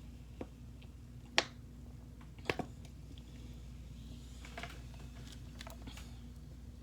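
Quiet swallowing and gulping of soda as someone drinks, heard as scattered soft clicks, the sharpest about a second and a half in and a double one a second later, over a steady low hum.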